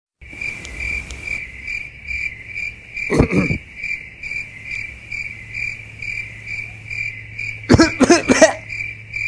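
Cricket chirping: a high, even chirp repeating about two to three times a second. It is broken twice by short, louder bursts of a man's voice, about three seconds in and again near the end.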